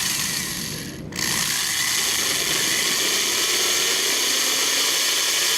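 Electric drill running at speed while drilling a small pilot hole for a hinge screw in wood. It eases off about a second in, then runs steadily with a high whine.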